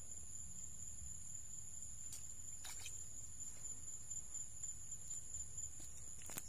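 Insects calling in a steady, continuous high-pitched drone, with a few faint clicks, the sharpest near the end.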